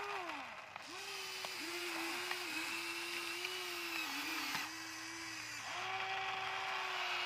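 Small electric motors of a Huina remote-control excavator whining as it digs, the pitch dipping several times under load and recovering, with a few light ticks.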